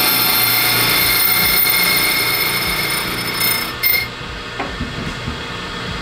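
Key-cutting machine's cutter motor running steadily with a high whine, cutting off about four seconds in. A few light knocks follow.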